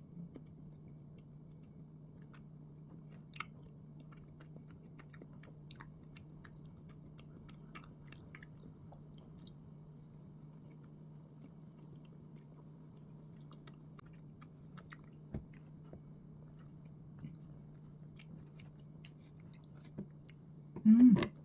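Close-up chewing of soft bread, with faint scattered mouth clicks over a steady low hum. About a second before the end there is a short, much louder sound.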